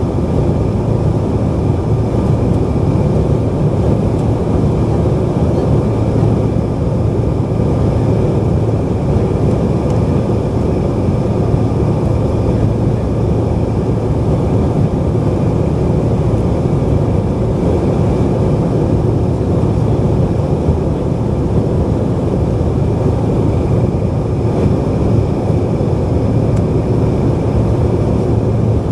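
Steady in-flight cabin drone of a Bombardier CRJ-900: noise from its rear-mounted General Electric CF34 turbofans and the airflow, heard from a seat inside the cabin. A few faint steady tones sit over the even rumble.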